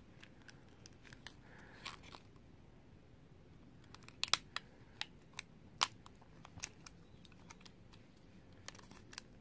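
Scattered small clicks and taps of hands and a small tool working at a smartphone's internal plastic covers, a few sharper ones a little after the middle.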